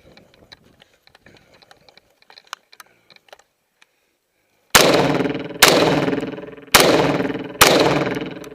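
Four rifle shots from an M1 Garand, fired as two quick pairs a little under a second apart, each shot ringing out with a long echoing tail. Before the shots come scattered faint clicks and ticks.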